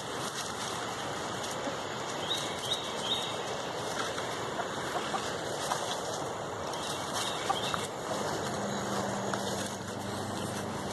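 Chickens clucking over a steady rustling noise, with a few short high calls about two seconds in.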